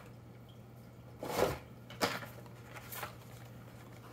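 Carded Hot Wheels blister packs being handled and swapped: a short rustling scrape of plastic blister and cardboard about a second in, then two sharp clicks a second apart. A low steady hum runs underneath.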